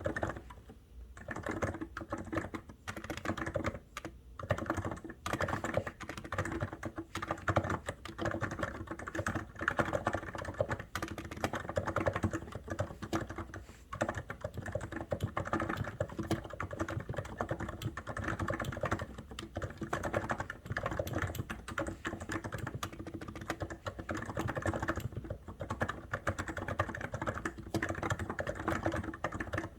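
Continuous fast typing on a COX Endeavour electrostatic capacitive keyboard, a dense run of keystrokes with brief pauses about a second in and again near four seconds.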